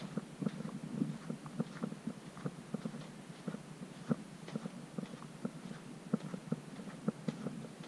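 Footsteps of people walking uphill in soft gypsum dune sand: a steady run of short, dull steps, about three a second.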